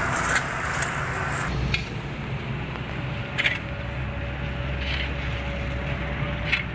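Steady low engine rumble, with a sharp click every second and a half or so, five in all, and a faint steady whine from about halfway in.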